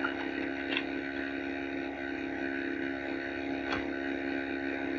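Steady electrical mains hum with background hiss, and two faint clicks, one just under a second in and another about three seconds later.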